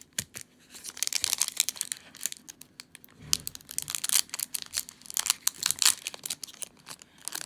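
Foil wrapper of a Pokémon GO trading-card booster pack crinkling and tearing as it is torn open by hand: dense bursts of sharp crackles starting about a second in, with short lulls between them.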